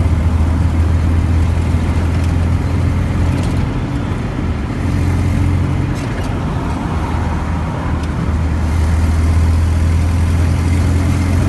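Car engine and road noise while driving: a steady low hum over tyre noise, easing off briefly twice.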